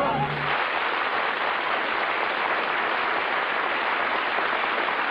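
Studio audience applauding steadily at the end of a song on a 1951 radio broadcast recording. The song's last sung and orchestral note cuts off just as the clapping begins.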